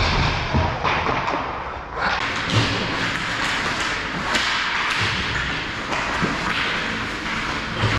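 Ice hockey play: skate blades scraping and hissing on the ice, broken by sharp knocks and thuds of sticks, puck, boards and goal at irregular moments.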